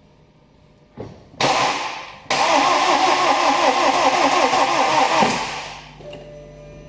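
Starter motor cranking a BMW N47 four-cylinder diesel engine. There is a brief burst about a second and a half in, then about three seconds of steady cranking with an even, rhythmic rise and fall, and then it stops. The engine turns over but does not fire: this is the won't-run fault being diagnosed.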